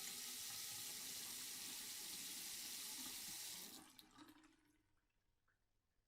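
Bathroom sink tap running while hands are washed under it, then shut off a little under four seconds in. A few faint drips and small ticks follow.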